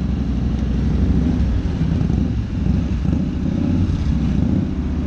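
Motorcycle engines running near idle with a steady low rumble as the bikes creep along at walking pace.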